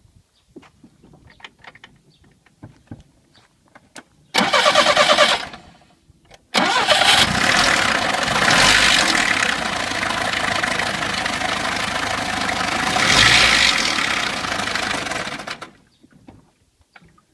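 Classic VAZ 2101–2107 (Zhiguli) inline-four engine: a short burst of starter cranking about four seconds in, then the engine catches a couple of seconds later, runs with two brief revs and is shut off. The engine has a knock that the mechanic suspects is a slack timing chain with a faulty chain tensioner.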